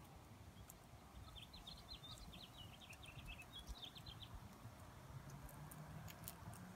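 Near silence broken by a small bird's quick series of short, high chirps, running for about three seconds from about a second in. A faint low hum comes in near the end.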